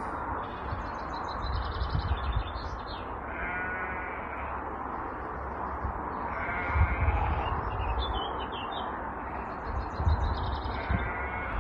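Crows cawing, three harsh calls several seconds apart, with smaller birds chirping and twittering higher up. Beneath them runs a steady hiss broken by low rumbles.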